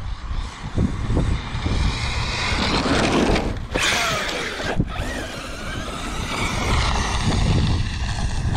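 Arrma Mojave 8S brushless electric RC truck running, its motor whining up and down in pitch as it speeds up and slows, over a steady low rumble.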